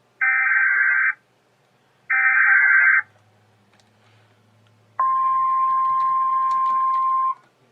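Emergency Alert System SAME header: two one-second bursts of warbling digital data tone about a second apart. After a pause comes a steady attention tone near 1 kHz, lasting about two and a half seconds, which signals that a new alert message follows.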